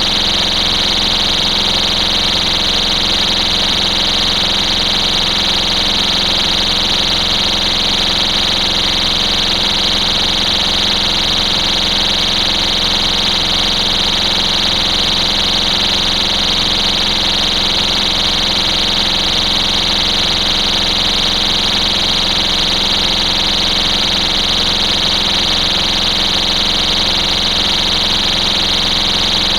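STI Stopper cover's built-in piezo alarm horn sounding continuously, a loud, shrill, high-pitched tone that holds unchanged.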